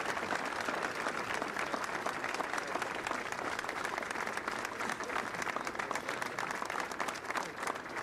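Audience applauding: many people clapping, steady throughout.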